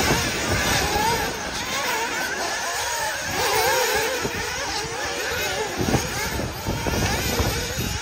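Several 1/8-scale nitro RC buggies' small two-stroke glow engines revving, their high pitches rising and falling and overlapping as the buggies speed up and slow for corners.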